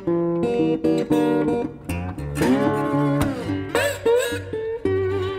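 Blues guitar music: plucked and strummed notes, with several notes gliding in pitch around the middle.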